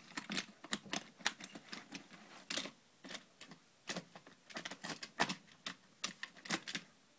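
Die-cast toy car pushed by hand over a plastic playset, clicking and rattling against the plastic in quick, irregular knocks.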